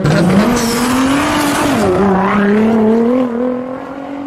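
Car engine revving: the pitch climbs, drops sharply about two seconds in, then climbs slowly again and fades out at the end.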